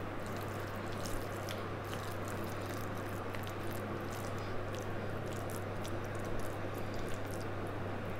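Hands squeezing and kneading a wet dough of grated bottle gourd and beet bound with gram flour, giving soft, irregular squelches and small wet clicks over a steady low hum.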